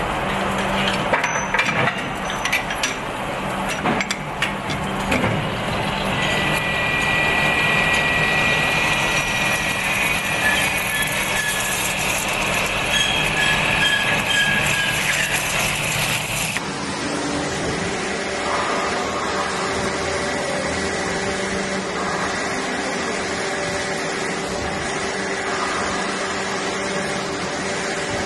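Metal-cutting machine running steadily, cutting metal under a stream of coolant, with scattered clicks and knocks and a thin high whine. About two-thirds of the way through the sound changes abruptly to a steadier, lower machine hum.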